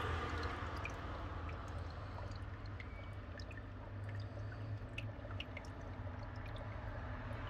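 Water trickling and dripping in a paludarium stream, with scattered small drip ticks over a low steady hum.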